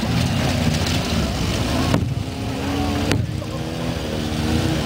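Motorcycles with sidecars and a military lorry running as they drive across a field, the engine note rising slightly in pitch through the second half.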